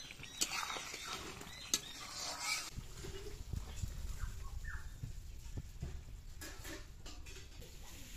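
A metal spatula clicks against an iron kadai of spinach and small-fish curry, with fowl giving short high calls in the background. From about three seconds in, a low rumble takes over.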